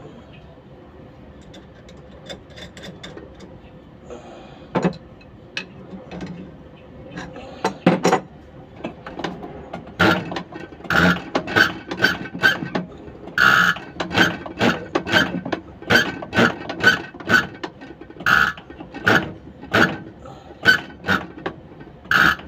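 Scattered metallic clicks and clinks of hand tools, then a steady run of sharp metallic strikes about twice a second from about halfway on.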